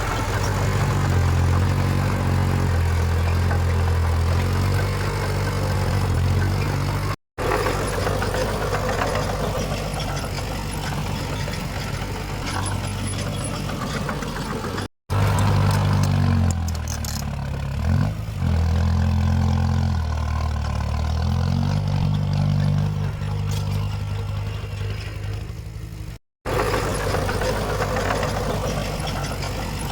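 Diesel engines of heavy earthmoving machines running, their pitch rising and falling as the machines work. The sound cuts out briefly three times.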